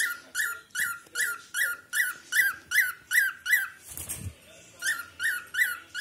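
Cockatiel chirping a fast run of short, repeated call notes, about two and a half a second, each note rising then falling. The calls stop briefly about four seconds in, where a soft bump is heard, then start again.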